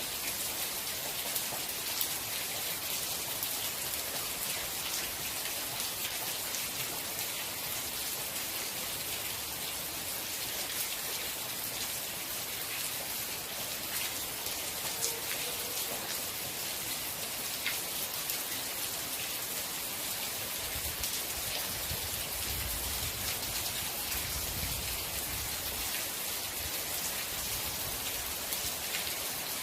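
Steady rain falling, a dense even hiss with individual drops ticking through it. A low rumble comes in about two-thirds of the way through and fades a few seconds later.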